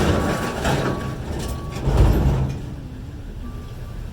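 Long scrap-steel poles being pulled off a load, with metal scraping and clattering at the start and a heavier clanging thud with low rumble about two seconds in. A reversing alarm beeps repeatedly in the background.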